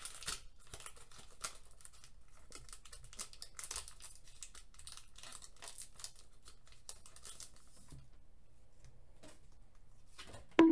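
Foil wrapper of a Pokémon TCG booster pack crinkling and tearing as it is opened and handled by hand. The crackling thins out about eight seconds in as the cards are slid out.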